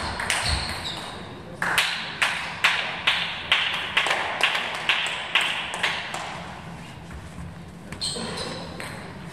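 Table-tennis ball bounced over and over, about twice a second, sharp pings echoing in a large hall.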